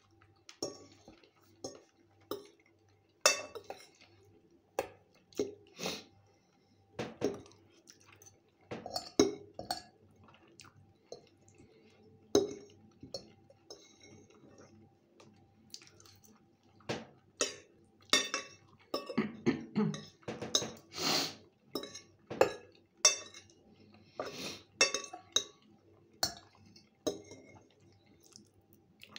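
Metal fork clinking and scraping against a ceramic plate at irregular intervals, mixed with chewing of soft fried potatoes, egg and bread.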